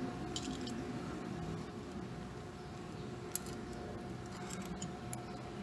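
Steady low hum of a machine shop with a few faint, light clicks of metal parts being handled, and one sharper click about three and a half seconds in.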